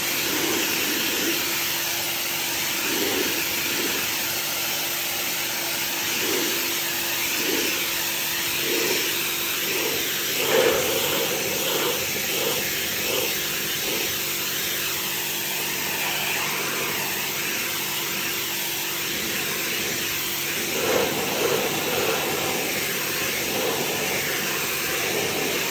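Pressure washer spraying: a steady hiss of high-pressure water with a motor hum underneath.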